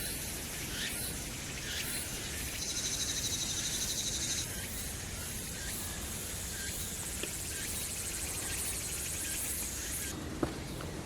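Forest ambience of insects trilling and buzzing at a high pitch. A louder pulsing trill comes in about two and a half seconds in and stops about two seconds later. A very high buzz cuts off about a second before the end, and there are a few short chirps.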